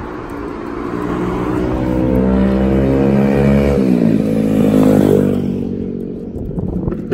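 A motor vehicle passing close by on the road: its engine note grows louder, drops in pitch as it goes past about four seconds in, then fades away.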